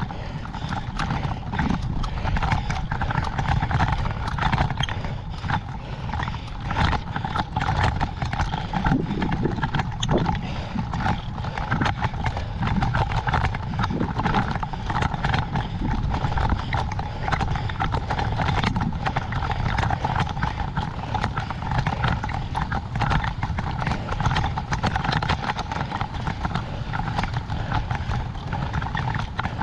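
Wind buffeting an action camera's microphone during a road-bike ride, with a dense run of irregular clicks and rattles over it.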